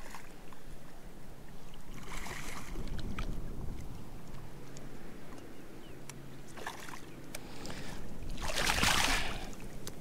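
Hooked redfish splashing at the surface of shallow water, over steady wind noise on the microphone, with a louder burst of splashing near the end.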